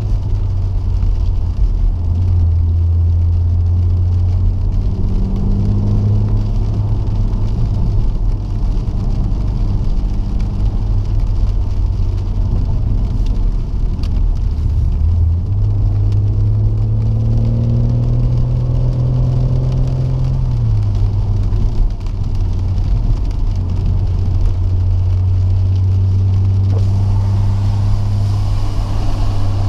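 BMW M140i xDrive's turbocharged 3.0-litre straight-six heard from inside the cabin, droning at low revs. The drone steps up and down in pitch a few times, rising as the car accelerates and dropping at gear changes.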